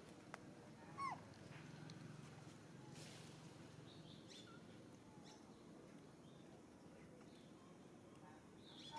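A monkey gives one short, high squeal that falls in pitch, about a second in, over an otherwise quiet background with a few faint high chirps.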